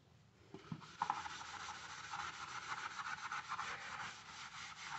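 Kitchen sponge scrubbing an aluminium pot lid with a soap polishing paste, a steady scratchy rubbing of quick short strokes that starts about a second in, working on the lid's dull grey tarnish.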